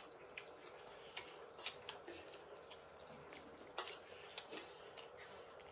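Quiet eating sounds: irregular small clicks and smacks of chewing, with a faint steady hum underneath.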